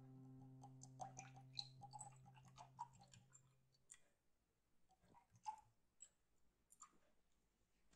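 Faint small clicks and bubbly pops of liqueur being poured into glasses. The last held note of soft background music fades away over the first few seconds, and scattered faint ticks follow.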